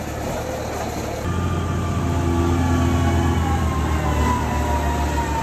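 Wheel loader's diesel engine running, growing louder about a second in, with a faint high whine sliding slowly down in pitch.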